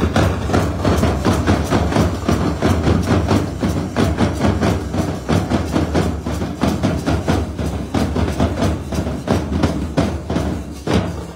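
A troupe of danka drums, large double-headed barrel drums, beaten together in a fast, dense rhythm. They come in loudly all at once and drop away near the end.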